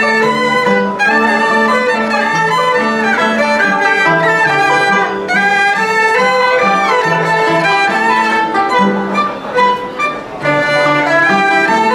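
A small live Chinese string ensemble playing: erhu bow a melody with sliding notes over a cello's lower line.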